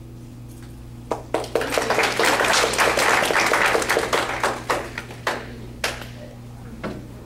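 Audience applause, starting about a second in and dying away into a few last scattered claps near the end.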